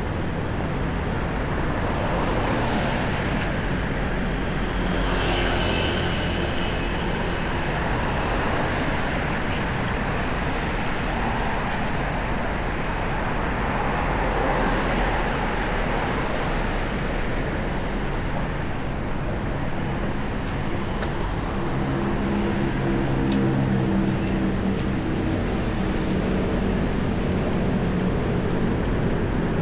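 Road traffic: a steady wash of vehicle engines and tyre noise, with a low engine drone standing out in the last several seconds.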